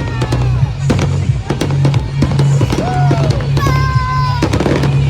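Fireworks display: many sharp crackles and bangs over loud music with a steady low bass.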